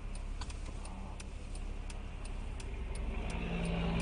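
Turn-signal indicator clicking evenly, about three ticks a second, inside a stopped car's cabin over a low engine idle. Near the end a semi truck's engine grows louder as the truck crosses in front.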